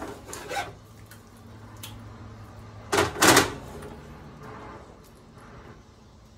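Tongs stirring vegetables in sauce in a pan, the liquid sloshing, with two loud clatters in quick succession about three seconds in.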